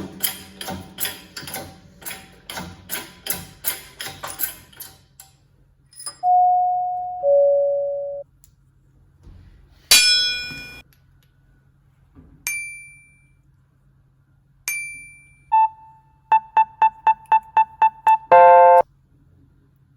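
Regular light taps for about five seconds, then a series of electronic tones: a two-note falling chime, a sharp ringing ping, several short high pings, a quick run of about nine beeps and a brief buzzy tone near the end.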